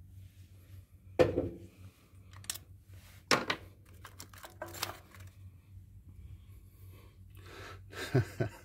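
An ignition coil being pulled out of its spark plug well on a 2008 Toyota Camry engine: short, sharp clicks and scrapes of plastic and rubber at about one, three and five seconds in, with rustling handling noise near the end.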